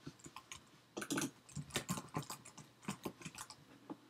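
Fast, irregular typing on a computer keyboard: a string of random letters tapped out, sparse at first and then in quick bursts from about a second in.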